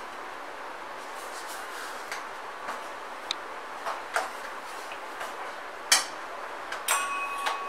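Steel ladle stirring boiling carrot kheer in a stainless steel saucepan, with scattered clinks and scrapes against the pot over a steady hiss. About six seconds in, a sharper knock; near the end the ladle clinks against the pot, which rings on briefly.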